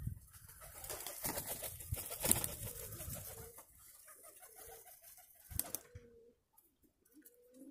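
Domestic Nikolaev pigeons cooing, soft wavering coos in the second half. Before that comes a few seconds of rushing, crackly noise, with one sharp crack later on.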